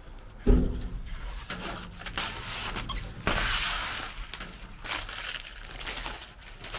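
Handling a polycarbonate pane: a sharp knock about half a second in, then crinkling and scraping as a gloved hand presses and rubs on the sheet, with a louder rushing rub a little past the middle.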